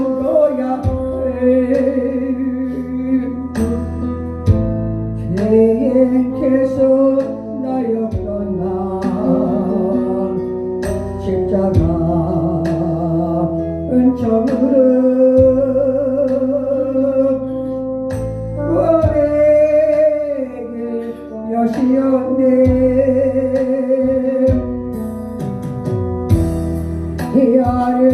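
A hymn sung solo with instrumental accompaniment: long held notes with vibrato over a steady bass line.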